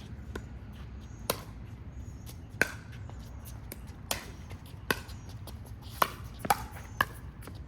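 Pickleball paddles striking a plastic pickleball in a rally: sharp pops about every second and a half, coming quicker near the end, with fainter ticks in between.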